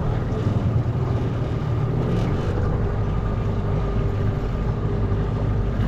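Outboard motor of a small aluminium boat running steadily.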